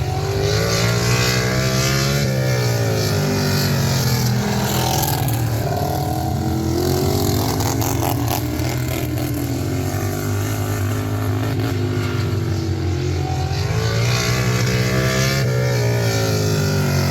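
Racing lawn tractor engine running hard, its pitch rising and falling again and again as it revs up and eases off.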